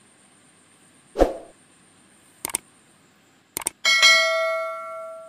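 A subscribe-button animation sound effect: a soft pop, two pairs of mouse clicks, then a bright bell chime that rings out and fades over about a second and a half.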